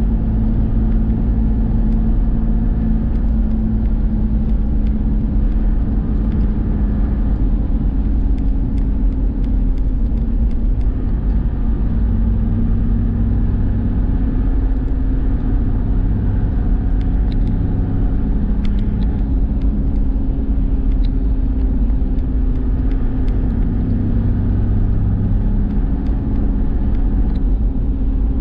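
Toyota Land Cruiser's engine and road rumble heard from inside the cabin while cruising at a steady speed: a continuous deep drone with a steady engine hum.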